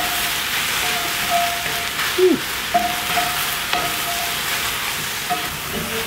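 Sliced mushrooms sizzling as they sauté in a hot frying pan on a gas stove, stirred with a wooden spatula: a steady frying hiss broken by the light scrapes of the stirring.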